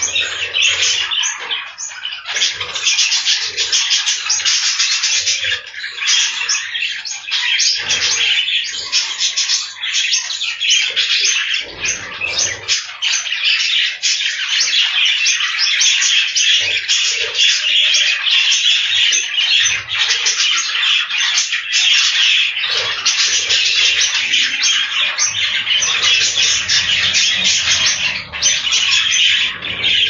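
A flock of budgerigars chattering and squawking continuously, many birds calling at once in a dense, unbroken stream of quick calls.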